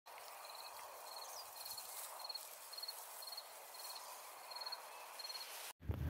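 A cricket chirping at an even pace, a short chirp about every half second, over a soft outdoor hiss; it all cuts off suddenly just before the end.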